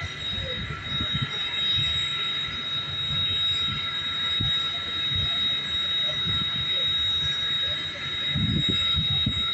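Railroad train or rail car rolling on the track: a low, uneven rumble with scattered knocks, under a steady high-pitched tone. The rumble and knocks grow louder near the end.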